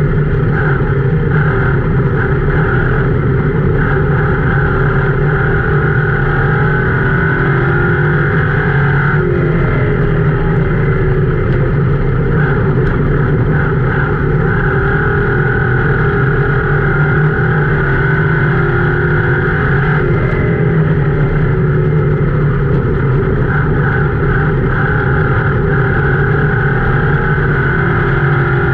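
Ford Crown Victoria dirt-track race car's V8 engine running hard at racing speed, heard from inside the cockpit, loud and steady. The engine note eases off and picks up again twice, about a third and about two-thirds of the way in.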